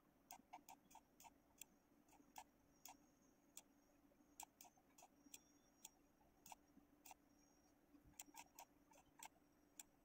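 Computer mouse clicking irregularly and faintly, some clicks in quick pairs, as vector lines are selected one after another in CAD software, over a faint steady hum.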